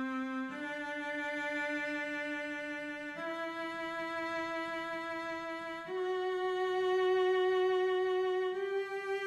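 A single instrument playing the G major scale in whole notes, each note held steadily for close to three seconds. It steps up from C through D, E and F sharp to the upper G.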